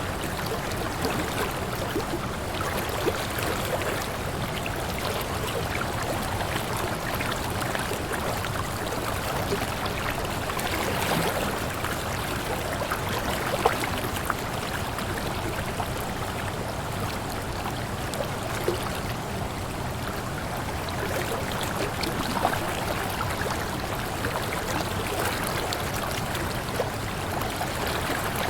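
Waterfall: water falling and splashing in a steady rush, with small splashes and trickles through it.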